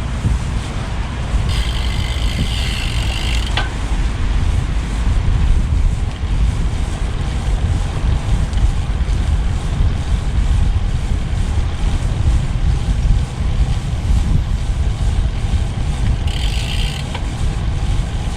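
Wind buffeting the microphone and road rumble from a road bike being ridden, a loud steady low roar. Two brief higher-pitched sounds rise above it, one about a second and a half in lasting two seconds, the other shorter near the end.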